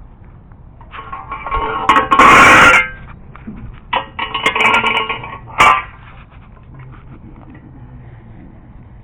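Metal engine parts clattering and scraping as they are handled, in two bouts, loudest between about two and three seconds in, followed by a single sharp clank near six seconds.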